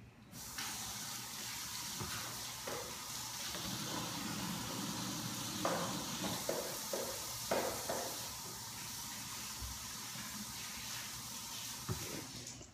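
Water running from a kitchen sink tap for hand washing: a steady hiss that starts about half a second in and is shut off near the end, with a few knocks in the middle.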